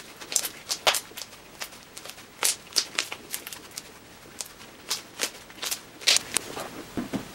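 Green cloud slime made with instant snow being kneaded and stretched by hand, giving irregular sticky crackles and pops.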